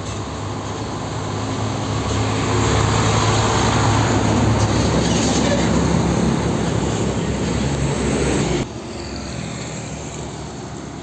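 Hino heavy truck's diesel engine and tyres growing louder as it approaches and passes close by, loudest from about three to eight seconds in. Near the end the sound drops suddenly to the quieter engine of a second cab-over truck approaching.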